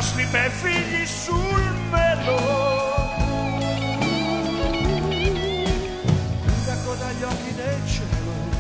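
Live blues-rock band playing: an electric guitar lead with bent notes and vibrato over strummed acoustic guitar, bass and drums.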